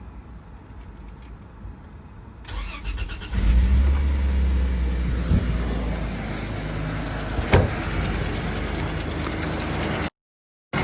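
Toyota Land Cruiser 80's 1FZ-FE 4.5-litre inline-six starting about three seconds in, then running steadily with a rattle, with a couple of sharp clicks. The sound cuts out briefly near the end.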